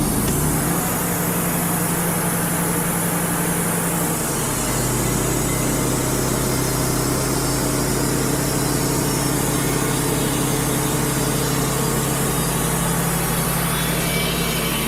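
Wood-Mizer LT35 HD portable sawmill running on its diesel engine with the band blade sawing through a red oak log; the steady engine note drops lower about four seconds in and holds there.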